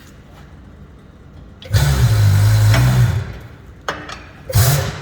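Tire changer's turntable motor running for about a second and a half as the table turns the wheel, then a brief second spin near the end.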